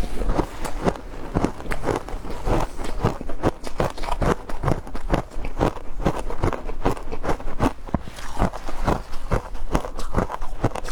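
Frozen matcha ice being chewed close to the microphone: a quick, steady run of sharp, loud crunches, about three a second.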